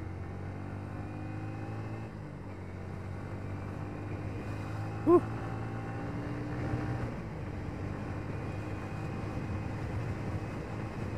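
Yamaha Vixion R 155 VVA's single-cylinder engine running at a steady cruising speed, heard from on board the moving motorcycle with wind and road rush. About five seconds in, a brief loud chirp that rises and falls in pitch cuts through once.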